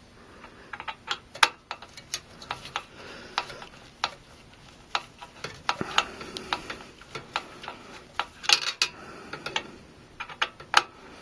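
Irregular small metal clicks and ticks, a few a second with some louder ones near the end, from tightening the CPU heatsink's mounting screws with a screwdriver.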